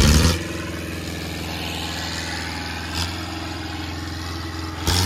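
Massey Ferguson tractor's diesel engine running steadily at a low, even speed, with a single click about three seconds in; it grows louder again near the end.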